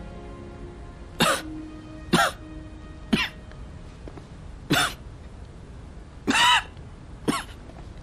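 A man coughing six times, roughly a second apart, the fifth cough longer than the rest, over soft background music. It is a hacking cough from a heavy cold with an inflamed throat.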